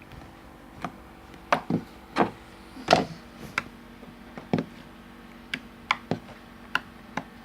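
Slime being squeezed and worked in the hands, making irregular sharp clicks and pops, about a dozen, the loudest about three seconds in.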